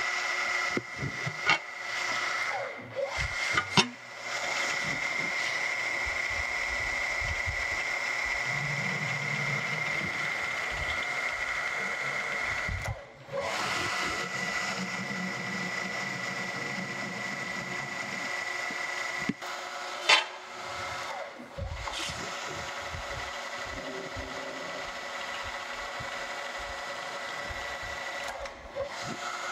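Vertical milling machine spindle running steadily with a high whine while 10-32 holes are power-tapped in an aluminium panel, the spindle driven forward into each hole and reversed back out. A sharp click stands out about twenty seconds in.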